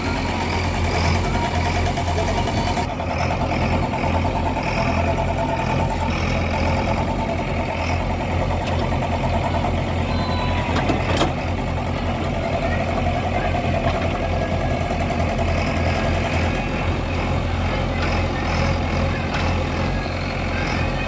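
JCB 3DX backhoe loader's diesel engine running steadily, with a single sharp click near the middle.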